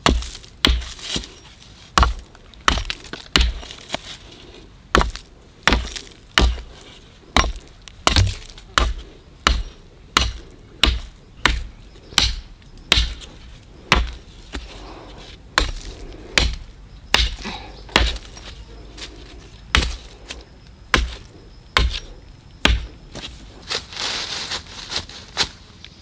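Wood being chopped with a bladed tool: a steady series of sharp strikes, about three every two seconds.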